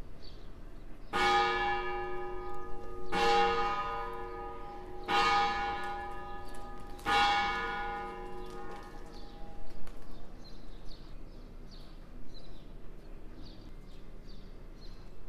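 Church bell tolling four strokes about two seconds apart, each stroke ringing on and fading before the next.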